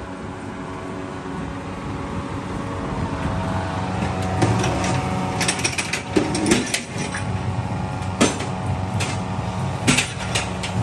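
A machine running with a steady hum, with sharp metallic clicks and knocks from about four seconds in.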